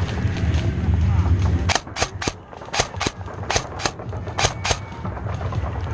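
Airsoft guns firing single shots, about nine sharp cracks over three seconds at an uneven pace. Low wind rumble on the microphone runs through the first second and a half.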